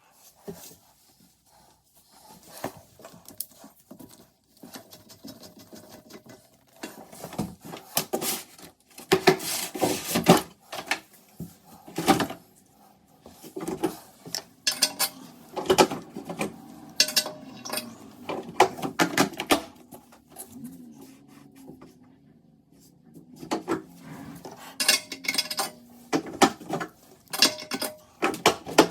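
Socket wrench, bolts and other metal hardware clinking, knocking and scraping against a toilet's porcelain tank and bowl during a tank-to-bowl gasket replacement, in irregular bursts with short pauses.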